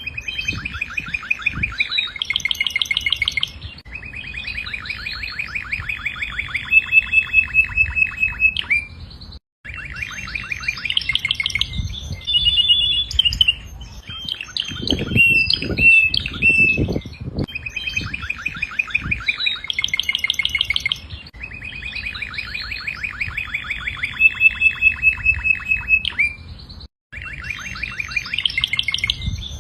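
Domestic canary singing long phrases of rapid trills: fast runs of repeated notes and rolling tours, with brief pauses between phrases. A few soft low knocks come about halfway through.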